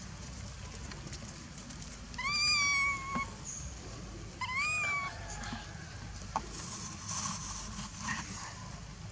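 Baby macaque giving two high coo calls, each rising and then held. The first comes about two seconds in and lasts about a second; the second comes near the middle and is shorter.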